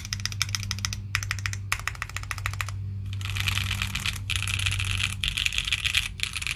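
Typing on a gasket-mounted Neo65 mechanical keyboard with stock Kailh BCP switches, an FR4 plate and PBT keycaps: quick bursts of keystrokes with short pauses, then, about three seconds in, a faster, denser flurry of keystrokes that sounds brighter.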